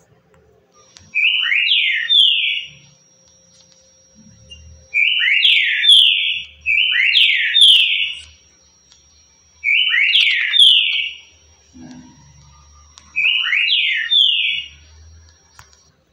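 Green-winged saltator (trinca-ferro) singing its 'currucutil' song: five short phrases, each a quick run of three or four clear, downward-slurred whistled notes, with pauses of one to three seconds between them.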